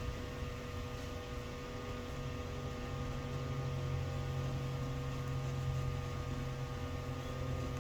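Steady electrical mains hum, a low drone with several even tones above it, and no other distinct sound.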